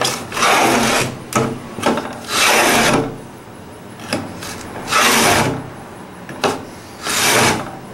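Japanese wooden plow plane (kikai shakuri kanna) being pushed through a board in repeated rasping strokes, about half a second each with some shorter ones between. It is taking a deep cut and lifting thick shavings.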